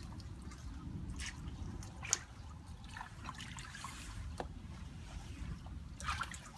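Water trickling and dripping, with scattered small splashes and a sharp knock about two seconds in.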